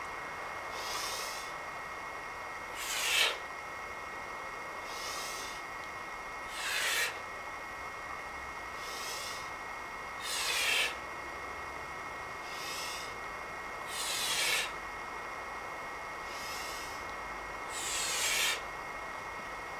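Heavy breathing of a man doing five double-kettlebell squats: on each rep a quieter breath, then a louder, forceful one, about every four seconds. A faint steady high whine runs underneath.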